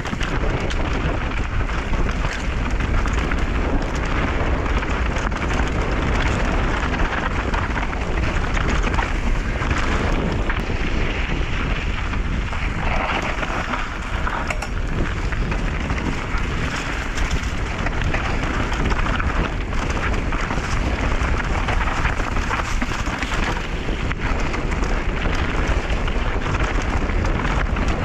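Mountain bike descending a dry, loose dirt trail, heard from a chest-mounted camera: a constant rush of wind on the microphone over tyres crunching through soil and stones, with the bike rattling and knocking over bumps.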